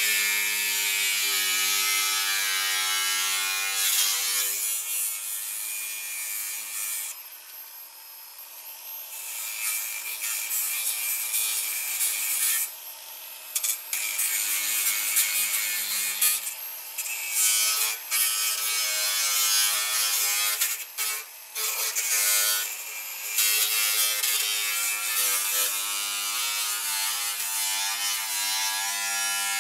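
Cordless angle grinder running, its motor whine steady under the hiss of the disc grinding a rusted steel body panel. The grinding drops out several times in the middle, briefly at first for about two seconds and then in shorter breaks.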